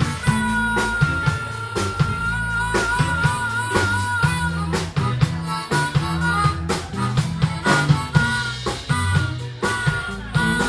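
Live blues-rock band with an amplified harmonica played through a vocal microphone. The harmonica holds one long note that starts to waver partway through, then plays shorter phrases over drums and a low bass line.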